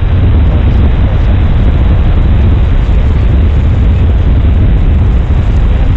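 Loud, steady wind rush buffeting the microphone, heaviest in a low rumble, with no clear engine note standing out.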